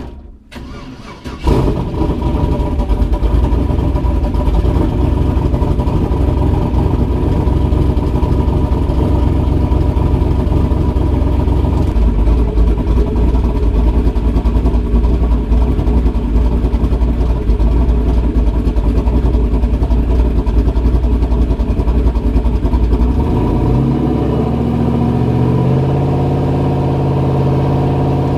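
Turbocharged LM7 5.3 L V8 in a Chevy S-10, with a newly fitted 7875 turbo on a .96 A/R housing, catches and starts about a second and a half in. It then runs loudly as the truck is driven off for a first test, heard from inside the stripped cab. Near the end the engine note settles into a steadier, evenly pitched drone.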